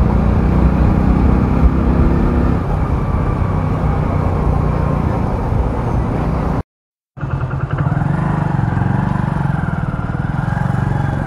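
Single-cylinder engine of a Hero Splendor motorcycle running steadily while riding. The sound cuts out completely for about half a second roughly two-thirds of the way through, then the engine sound carries on.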